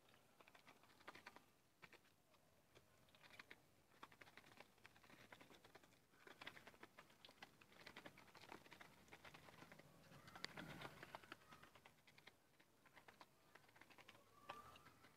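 Muscovy ducklings' bills pecking rapidly at dry feed in a plastic tub, a faint, fast, uneven patter of clicks, with one louder knock about ten seconds in.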